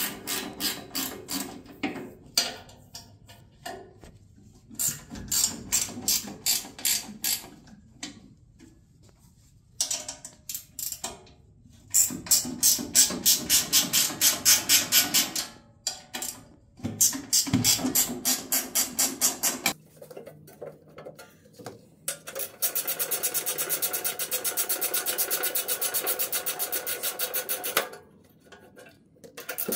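Socket ratchet wrench clicking in short bursts of regular clicks as the 12 mm bolts of an excavator control console are backed out, with a longer, steadier run of faster clicking near the end.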